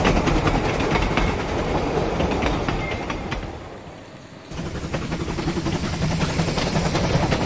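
OO gauge model trains running on the layout's track: a steady hum of the locomotive motors under a dense patter of wheel clicks over the rail joints. The sound drops away for about a second midway, then comes back at full level.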